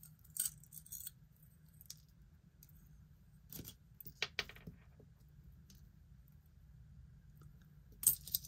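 Metal costume jewelry being handled: scattered light clicks and taps of a metal cuff bracelet, with a brief jangle of jewelry about eight seconds in.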